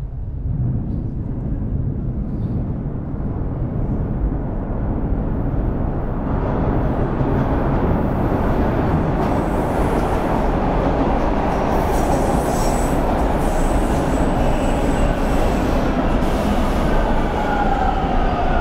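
Metro train running, a steady low rumble that grows louder over the first several seconds, with high squealing from the wheels near the end.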